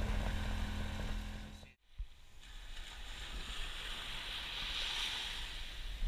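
A steady low hum with a few faint clicks, cut off abruptly, then an even hiss of wind and surf on the beach.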